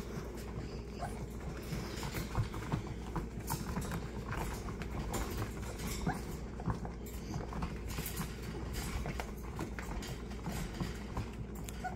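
Small puppies playing tug-of-war with a braided rope toy: an irregular patter of scuffling, scrabbling taps as they pull and tumble on the pad, with the odd small puppy noise.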